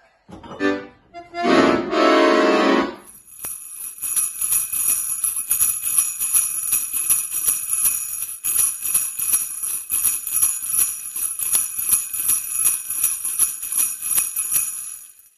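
Jingle bells shaking in a steady, even rhythm for about twelve seconds, starting about three seconds in and cutting off just before the end. A brief loud pitched sound comes before them in the first couple of seconds.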